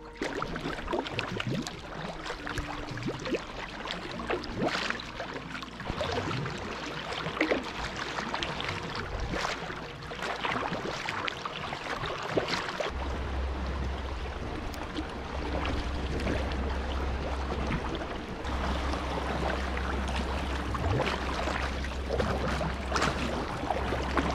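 Sea kayak paddling on choppy open water: a double-bladed paddle dips and splashes every second or two, and water sloshes and slaps against the hull. A low steady rumble joins about halfway through.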